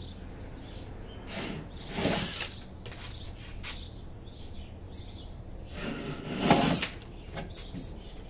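Two short rasping bursts, about a second each, as a cordless drill bit cuts into the sheet metal of a Dodge Magnum's rear hatch. Birds chirp faintly in the background.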